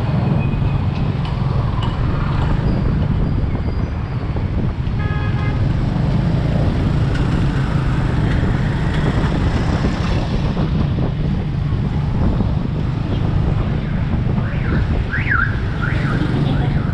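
Motorbike engine running steadily on the move, with wind buffeting the microphone and street traffic around it. A short horn beep sounds about five seconds in, and a few brief wavering higher tones come near the end.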